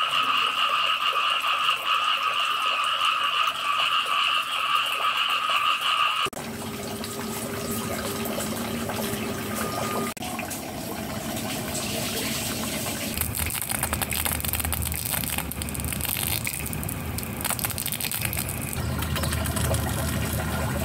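A steady high-pitched night-time chorus of calling frogs or insects that cuts off suddenly about six seconds in. After it comes a duller outdoor hiss with splashing water.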